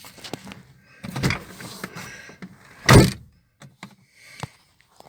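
A 1998 Mazda 626's car door is shut with one loud thump about three seconds in, after some rustling movement and followed by a few light clicks.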